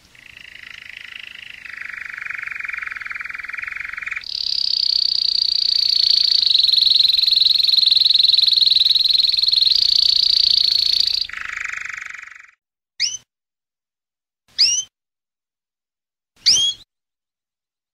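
Domestic canary singing: long, rapid rolling trills, first lower, then a high trill held for about seven seconds, then a short lower trill. These are followed by three separate short rising whistles, a little under two seconds apart.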